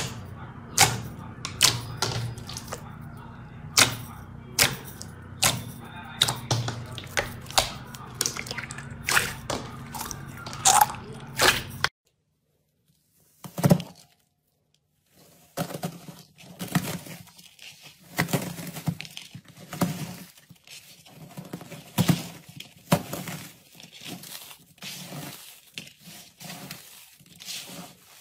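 Fingers pressing and poking thick gold slime, giving sharp wet clicks and pops every second or so. After a short silence about twelve seconds in, a slab of pink crumbly sand is broken apart and squeezed by hand, with denser soft crunching.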